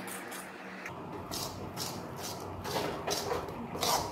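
Metal spoon stirring and scraping thick gram-flour, sugar and ghee batter around an aluminium kadai, in quick repeated strokes of about three a second that start about a second in.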